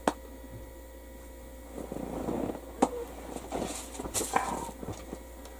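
A house cat being let up onto the work table and moving about near the microphone: soft rustling and short sniffing noises, with a sharp click a little under three seconds in.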